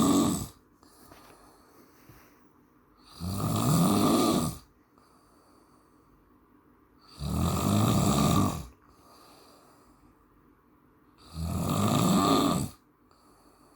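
A man snoring in a steady rhythm. One snore is ending as the clip opens, then three full snores follow about four seconds apart, each a rasping rumble about a second and a half long, with quiet pauses between.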